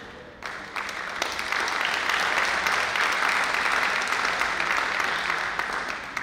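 Audience applauding. A sharp click at the start, then the clapping builds over the first second, holds steady and dies away near the end.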